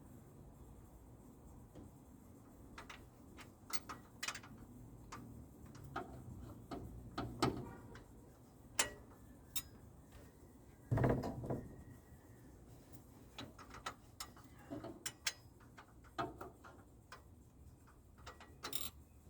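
Irregular clicks and light knocks of hand tools on the engine as cylinder head bolts are worked loose with a wrench, with one louder knock about eleven seconds in.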